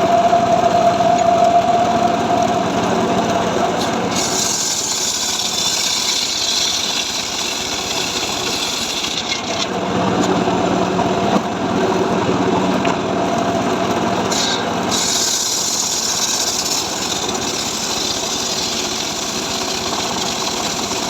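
Two-stroke chainsaw running while cutting dry mahogany. Its steady engine note gives way twice to several seconds of hissing chain cutting, about four seconds in and again about fifteen seconds in.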